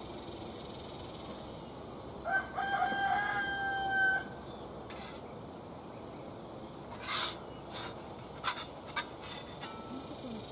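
A rooster crows once, a single call of about two seconds, a couple of seconds in. In the second half come a few sharp clicks and scrapes of metal utensils on the grill and griddle, the loudest of them near the end.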